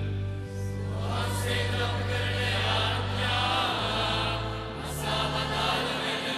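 Choir and congregation chanting the sung response to a litany petition in unison, over sustained keyboard chords that change a few times.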